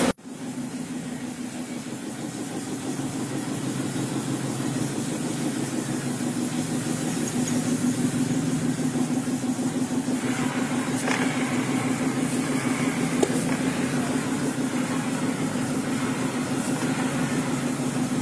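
Yamaha Mio J scooter's single-cylinder engine running steadily with an even pulsing beat, growing a little louder over the first several seconds and then holding.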